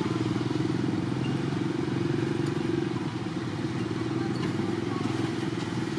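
A small engine running steadily with a low, pulsing drone, easing slightly about halfway through.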